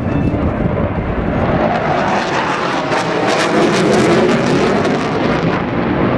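Panavia Tornado F.2's twin RB199 turbofans roaring in afterburner through a hard banking turn. Rapid crackling builds from about two seconds in and eases near the end.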